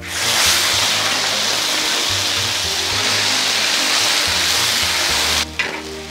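Marinated chicken pieces dropped into hot oil in a large wok, sizzling loudly at once and then frying steadily. The sizzle cuts off suddenly about five and a half seconds in.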